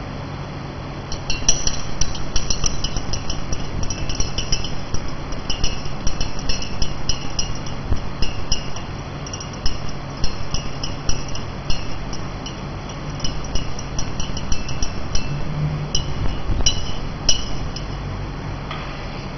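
A stirring rod clinking quickly and irregularly against the sides of a glass beaker as water-treatment powder is stirred into dark wastewater. The clinking starts about a second in and stops near the end, over a low steady hum.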